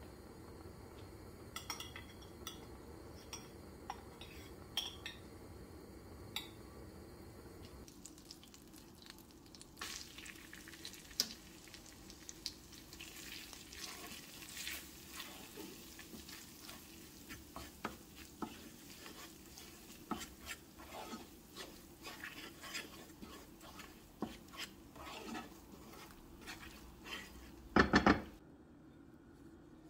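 Butter sizzling gently in a stone-coated frying pan, then a wooden spoon stirring and scraping red pepper powder through the hot butter in many short strokes and taps against the pan, with one loud knock near the end.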